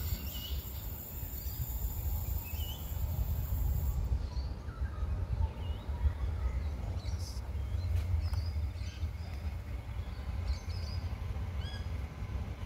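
Birds chirping in short, scattered calls over a steady low rumble from an Adelaide Metro 3000-class diesel railcar approaching the platform.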